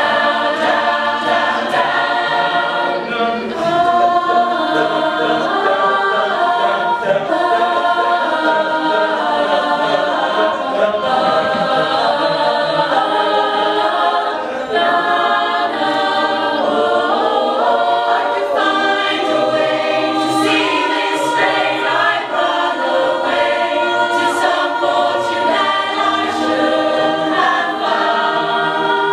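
Vocal ensemble singing an a cappella arrangement of a pop song, several voice parts in harmony with no instruments.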